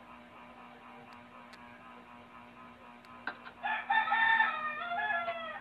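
A rooster crowing once, a single call of about two seconds starting a little past halfway and dropping in pitch at its end.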